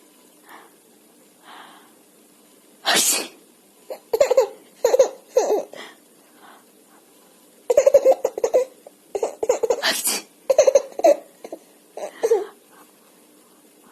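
An adult sneezing twice, once about three seconds in and again about ten seconds in. Between and after the sneezes come clusters of short, choppy bursts of a baby's laughter.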